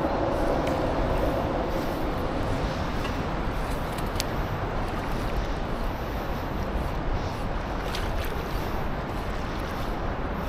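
Steady rushing noise of a flowing stream, with a few faint clicks about four and eight seconds in.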